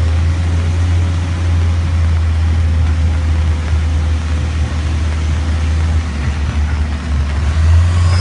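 A safari jeep driving along: a steady, loud low engine and road rumble under an even rushing hiss.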